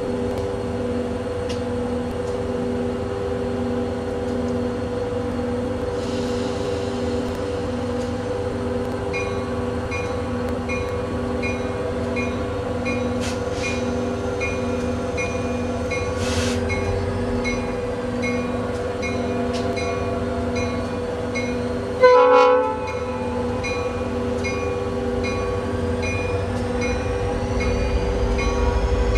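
Reading & Northern diesel locomotive standing with its engine running: a steady hum with a pulse about once a second, and more pulsing tones from about a third of the way in. A brief loud burst comes about three-quarters of the way through.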